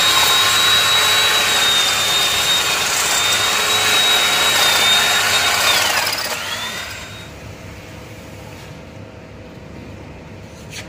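Rotary hammer drill boring an anchor hole into a concrete column, loud with a steady high motor whine that drops away as the drill stops about six seconds in. After that comes a fainter steady hiss from an air hose blowing out the drilled hole.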